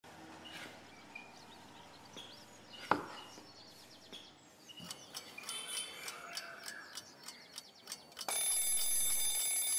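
Faint quiet ambience with small bird chirps and a single sharp knock about three seconds in, then, about eight seconds in, an alarm clock bell starts ringing steadily and stays the loudest sound.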